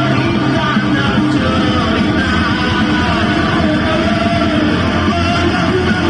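Loud music played through a small competition speaker rig driven hard for a sound-pressure-level (SPL) loudness test.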